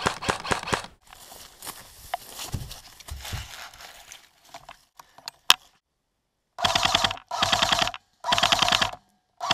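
Airsoft guns firing full-auto bursts of rapid shots: one short burst at the start, then three bursts each just under a second long near the end. A single sharp crack comes about halfway through.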